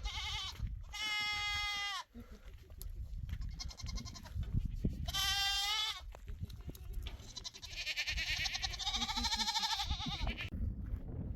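An animal bleating in three long calls, the last one wavering, over a steady low rumble.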